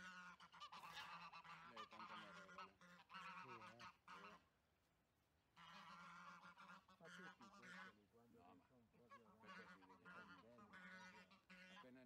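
Faint honking and cackling of domestic geese: two long runs of repeated calls, broken by a pause of about a second and a half around four seconds in.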